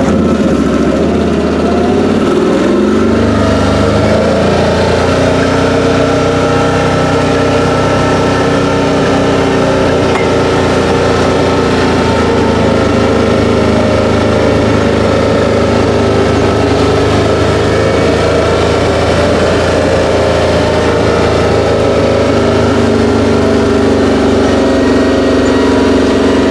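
Engine of a Can-Am off-road vehicle running while it is driven. The engine pitch rises over the first few seconds as it pulls away, then holds at a fairly steady cruise.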